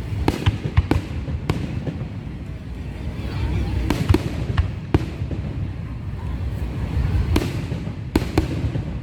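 Fireworks display: irregularly spaced sharp bangs and cracks of bursting shells over a continuous low rumble.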